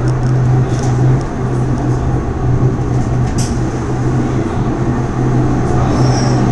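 Running noise inside a moving funicular car: a steady rumble of wheels on the rails under a constant low hum, with a few faint clicks, as the other car passes on the parallel track of the passing loop.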